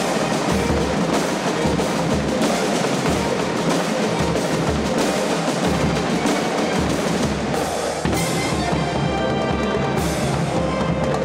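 Military band drum corps playing a fast rhythm on snare and bass drums, with drum rolls. About eight seconds in the drumming thins and steady held tones come in.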